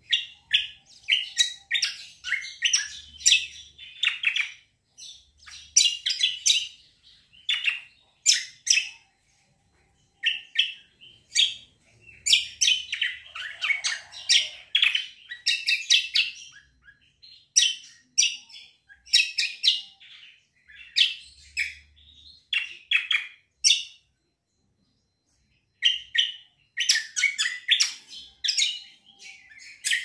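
Caged kecial kombo (cucak kombo) singing in rapid runs of high, chirping notes, phrase after phrase with short pauses between them and a break of about two seconds near the end.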